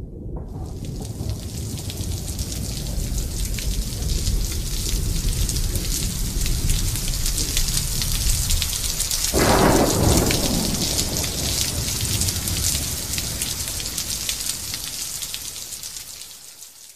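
Steady heavy rain with low rolling thunder underneath. A loud thunderclap breaks about nine seconds in and rumbles for a second or so, and the storm fades out at the very end.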